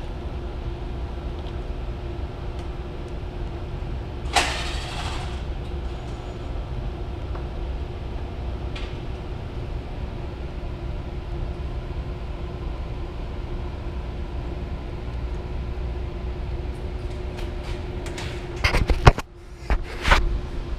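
Steady machinery hum of a power-plant equipment room, with a held tone over a low drone. A short noisy burst comes about four seconds in, and several knocks and a loud thump come near the end.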